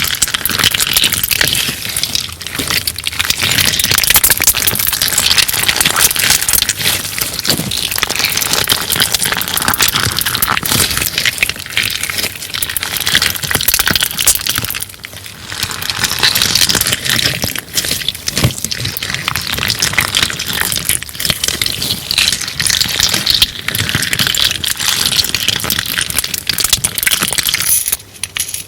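Crunchy clear slime being squeezed and pressed, giving a dense, continuous crackling and clicking, with a brief pause about halfway and another just before the end.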